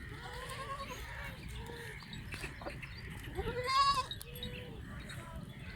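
Goats bleating, about five separate calls with the loudest about three and a half seconds in.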